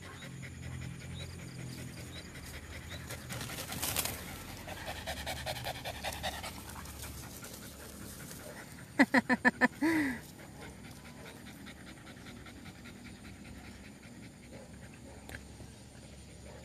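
A dog panting in quick, rhythmic breaths. About nine seconds in there is a quick burst of about six short, sharp, loud calls that end in a falling note.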